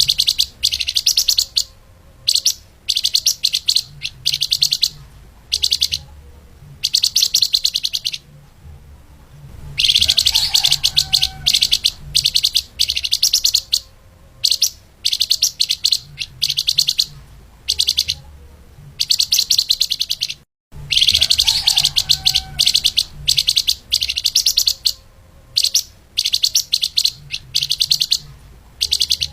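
Flamboyan (lemahan) songbird singing its fast song: dense, high, very rapid trills repeated in bursts of about a second, with short pauses between. The song drops out briefly about two-thirds of the way through, then starts again.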